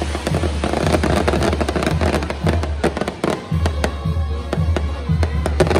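A fireworks castillo going off: rapid crackling and popping of burning fountains and small charges, with a few whistling tones. Music with a steady low beat plays under the crackle.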